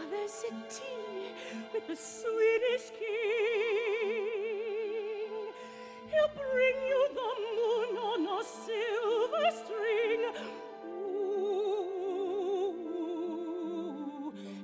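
A woman singing a slow lullaby with wide vibrato over soft, sustained orchestral accompaniment.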